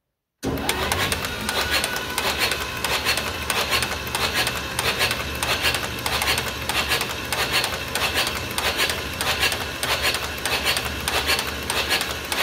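1949 John Deere B two-cylinder engine turned over on its electric starter with the spark plugs out, cranking steadily with a regular beat. It is being cranked to pump oil through the dry, freshly rebuilt engine and fill the oil filter. The cranking starts abruptly about half a second in.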